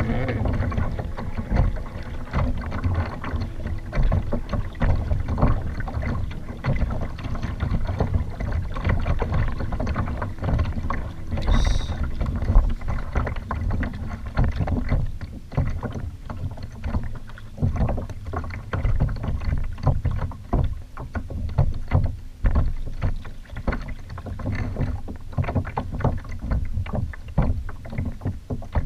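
Water splashing and lapping against a kayak's hull, an uneven run of small splashes over a low rumble. One sharp knock with a brief high ring comes a little before halfway.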